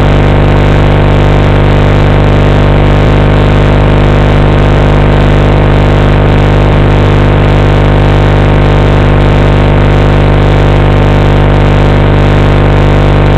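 FPV quadcopter's brushless motors idling at a steady pitch while the drone sits armed on the ground, a loud constant whine with no change in speed.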